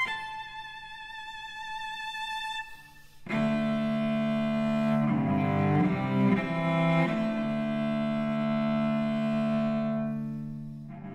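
Solo cello bowed: a single high note held for nearly three seconds, a brief break, then a full-toned passage in the low register with a few changing notes and a long sustained note that fades away near the end.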